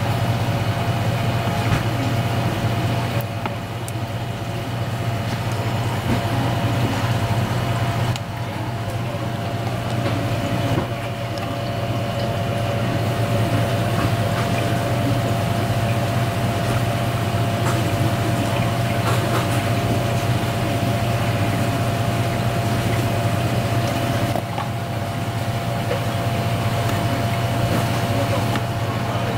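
Steady low mechanical hum with a thin steady whine above it, and a few faint taps of a knife on a plastic cutting board as raw conch meat is sliced.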